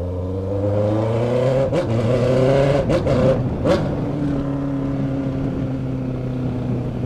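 Honda CBR650F inline-four with a straight-pipe exhaust, no muffler, revving: the pitch climbs, a few sharp cracks sound as the revs drop, then it settles to a steady lower note.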